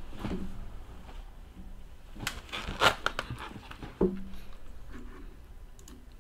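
Scattered clicks and taps of a computer keyboard and mouse, a cluster of them a little over two seconds in, and a sharper knock about four seconds in.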